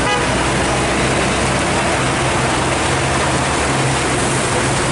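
Heavy rain pouring down steadily with a constant hiss, under the low hum of truck and car engines crawling through the flooded road.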